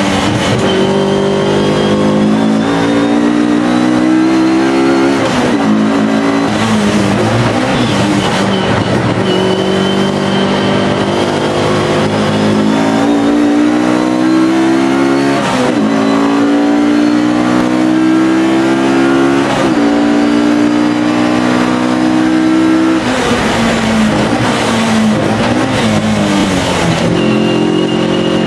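Alfa Romeo racing car's engine at racing speed. Its pitch climbs for a few seconds at a time and drops sharply at each gear change, about eight times, with a faint high whine rising along with it.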